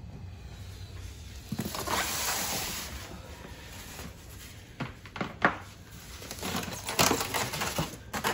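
Packaging being handled: plastic wrap rustling and styrofoam packing blocks scraping and creaking as they are pulled off an appliance. A longer rustle comes about two seconds in, followed by scattered sharp crackles and knocks.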